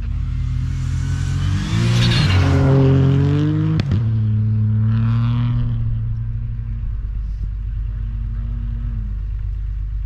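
2019 Ford Fiesta R2T19 rally car's turbocharged 1.0-litre three-cylinder engine revving hard, rising in pitch twice with a sharp crack between the two climbs about four seconds in, then holding a steady note that drops near the end.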